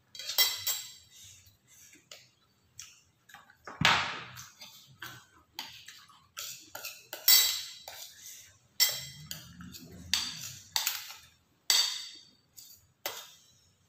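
Metal spoons clinking and scraping against ceramic plates and bowls during a meal, with about twenty short, sharp clinks that ring briefly. There is one duller knock about four seconds in.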